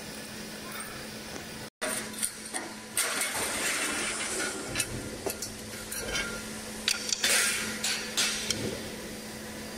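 Long sheet-metal cover strips scraping and clattering as they are lifted off a CNC router table and laid on the floor, with several sharp knocks. A steady low hum runs behind.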